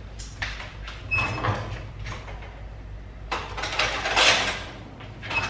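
Rustling and scraping handling noise in three bursts, the longest and loudest about three and a half to four and a half seconds in, over a steady low hum.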